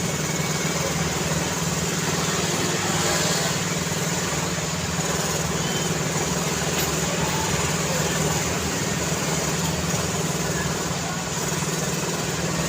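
Steady road traffic: a continuous mix of engine hum and tyre noise from passing vehicles, with no single vehicle standing out.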